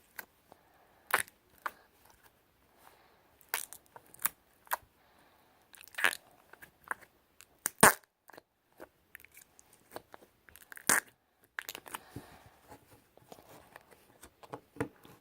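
Flarp noise putty squished in its small plastic container, giving short squelching pops at irregular intervals with soft handling noise between.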